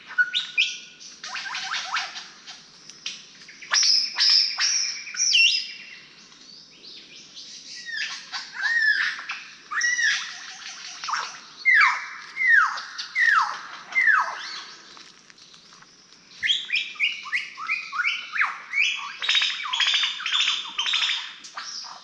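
Lyrebird singing a long, varied song. Its phrases change every few seconds, with a series of falling whistled notes repeated about every two-thirds of a second midway, then a fast string of sharp notes near the end.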